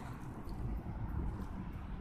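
Wind buffeting the microphone, a low, uneven rumble.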